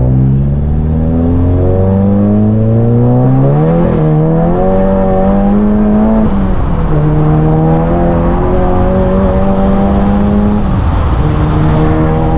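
Volkswagen Mk7 GTI's turbocharged 2.0-litre four-cylinder, heard from inside the cabin, accelerating hard through the gears. The engine pitch climbs steadily, drops at quick upshifts of the six-speed manual about six and eleven seconds in, then climbs again.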